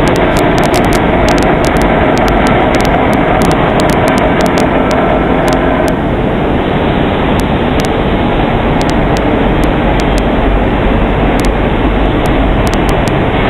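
Leaf spring eye milling machine running: a loud, steady machine noise with many sharp clicks. A mid-pitched tone in it stops about six seconds in.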